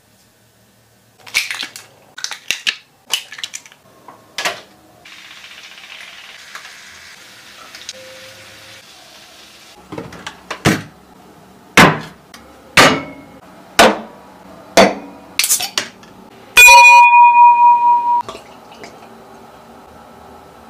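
Sharp clicks and knocks of kitchen handling, then a stretch of steady hiss. Six loud knocks follow about a second apart, and near the end a steady electronic beep lasts about a second and a half.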